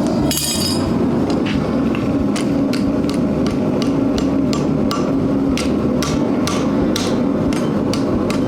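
Hand hammer striking hot steel on an anvil, a fast, even run of blows about three a second, knocking the twist out of a forged steel hinge. One ringing metallic clang comes just at the start, and a steady low drone runs underneath.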